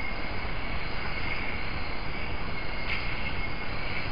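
Steady hiss of a trail camera's built-in microphone picking up night-time rainforest ambience, with a steady high-pitched insect drone and a faint click about three seconds in.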